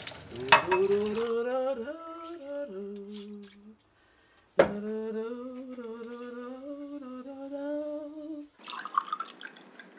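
A voice humming a slow wordless tune in two long phrases, with a short break about four seconds in. Near the end, a tap runs into a sink.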